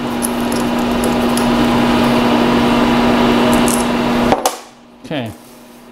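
Milling machine spindle running with a steady hum while drilling soft copper vise jaws. It is switched off about four seconds in, drops away suddenly, and a brief falling whine follows as it winds down.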